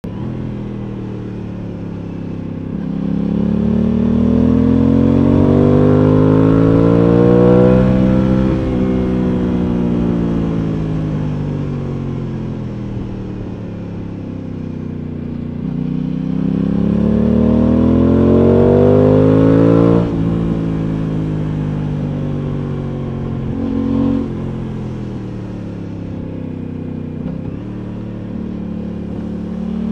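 Aprilia Tuono 660's parallel-twin engine heard from the rider's seat, twice pulling up through the revs and then easing off slowly. About twenty seconds in the throttle is shut suddenly, and the engine then runs lower with a brief rev blip.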